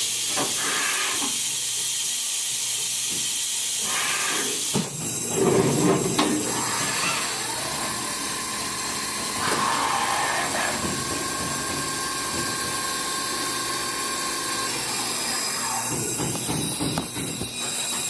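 Fadal VMC40 CNC vertical mill running with a steady hiss, with a faint steady whine in the middle seconds.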